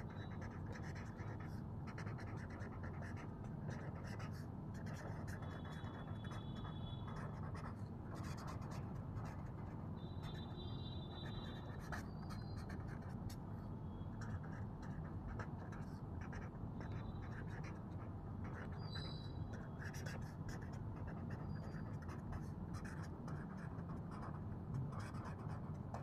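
Green pen scratching on paper as a line of handwriting is written, in many short faint strokes over a low steady room hum.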